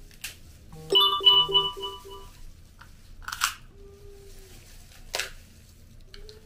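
A phone notification chime: a quick run of about five short, evenly spaced beeps about a second in, the loudest sound here. Around it, seafood-boil crab shells crack and crunch three times as they are broken open by gloved hands.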